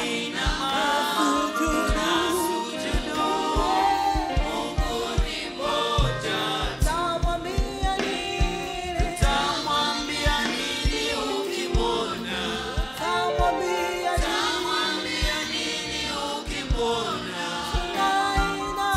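Gospel worship song sung in Swahili by a group of singers with a band, over a steady drum beat.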